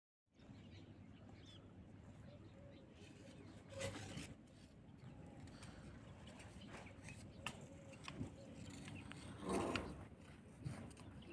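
Faint background noise with a few brief soft sounds, the most noticeable about four seconds and nine and a half seconds in.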